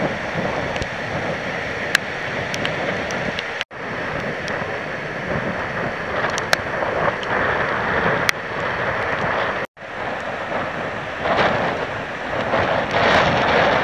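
Storm wind gusting and buffeting the microphone, rising and falling in swells. It cuts out abruptly twice.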